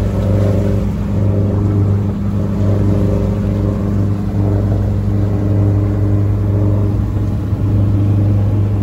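Sailing yacht's engine running steadily, a deep even hum.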